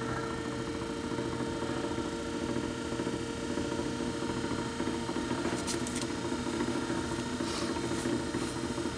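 Wood lathe running with nothing touching the workpiece: a steady motor hum with a few faint ticks.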